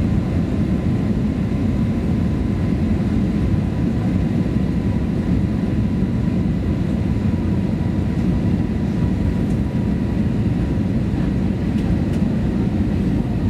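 Steady cabin noise of an Airbus A321-200 airliner descending on approach: a low rumble with a faint, steady high whine running through it.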